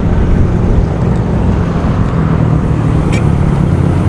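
Steady low rumble of motor vehicle engines running without a break.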